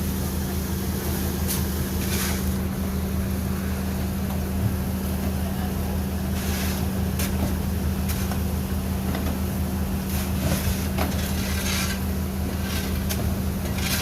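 Boat engine running at a steady drone, with brief hissing rushes every second or two.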